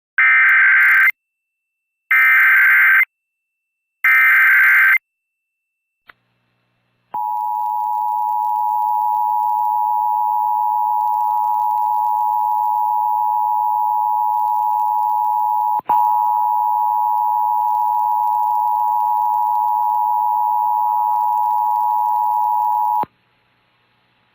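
Emergency Alert System activation for a tornado warning: three one-second bursts of screeching digital SAME header code, a second apart. After a short pause comes the steady two-tone EAS attention signal (853 and 960 Hz together), which runs for about sixteen seconds and cuts off suddenly.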